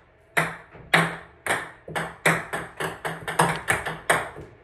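Ping-pong ball bouncing, a run of sharp knocks that come faster and faster.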